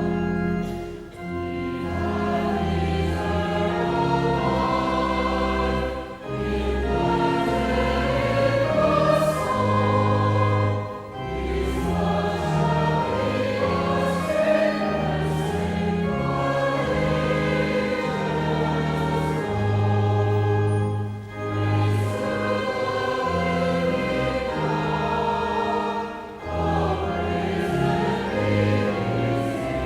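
A hymn sung by many voices over sustained low chords, in phrases of about five seconds with short breaks between them.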